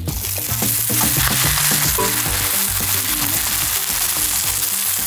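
Green onion pancake sizzling on a hot camping griddle. The sizzle jumps up suddenly at the start, as the pancake is turned over with a metal spatula, and then holds steady.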